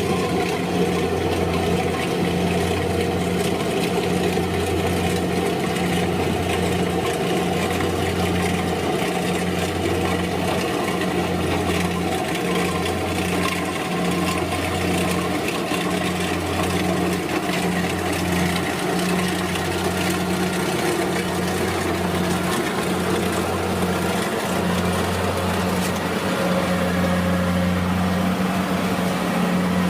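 Kubota DC-70 rice combine harvester's diesel engine running steadily as a low, even hum while it harvests.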